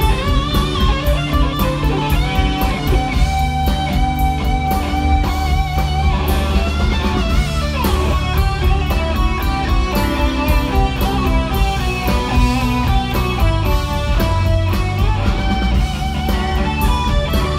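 Live rock band playing, led by an electric guitar line with wavering, bent notes over bass guitar and a steady drum beat.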